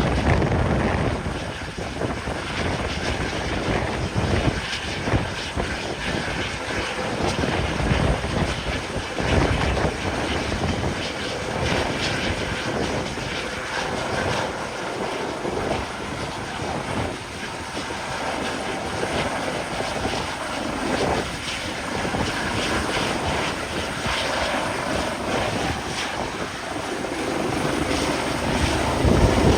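Pilot-transfer helicopter flying close, its rotor and turbine running steadily, getting louder near the end.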